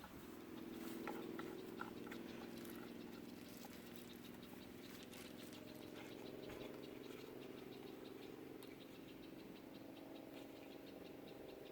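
Faint small clicks, taps and scrapes of plastic fan parts being handled and fitted together, over a faint steady hum.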